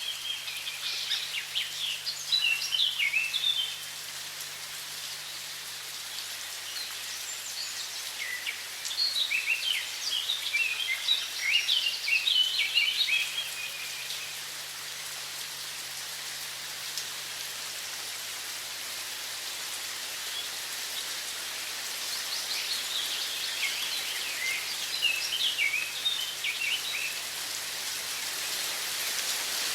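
Steady hiss of running water, with songbirds singing quick chirping phrases in three bouts: at the start, from about 7 to 14 seconds in, and again from about 22 seconds in.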